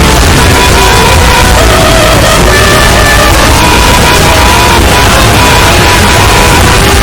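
A dense, heavily distorted wall of layered sound effects and music at full volume, with no let-up. Short steady beeping tones and wavering pitched sounds ride over a constant loud noise.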